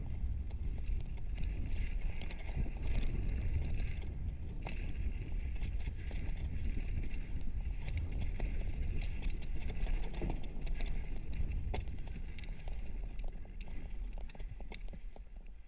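Mountain bike rolling down a dirt-and-gravel trail, heard from a helmet-mounted camera: steady wind rumble on the microphone, tyres over loose stones, and a constant run of small clicks and rattles, including the Fox Proframe RS full-face helmet rattling. The noise eases off near the end.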